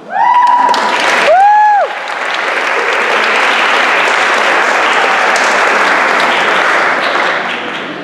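Audience applauding after a performance. It opens with two loud, high cheering calls, the second rising and falling, then settles into steady clapping that fades near the end.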